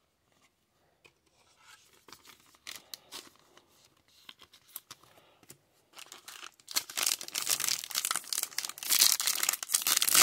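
Foil wrapper of a Topps Stadium Club Chrome trading-card pack being torn open and crinkled by hand, loud and dense from about two-thirds of the way in. Before that, faint rustles and clicks as the cards and packs are handled.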